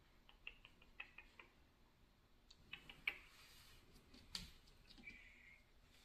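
Near silence with faint scattered clicks and rustles: a quick run of light ticks in the first second or so, a sharper click at about four and a half seconds, and a brief soft rustle just after.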